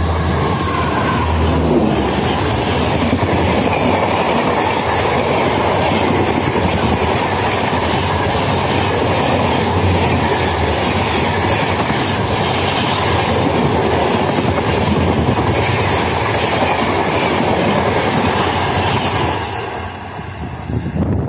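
Express train hauled by an electric locomotive passing at full speed: a loud, steady rush and rattle of wheels on the rails. It fades about 19 seconds in as the last coach goes by.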